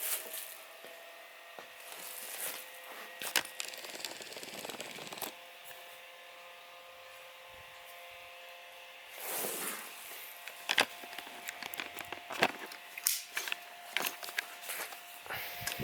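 Small USB-powered metal desk fan running at its single speed: a steady motor hum under the rush of air, with scattered sharp clicks and knocks.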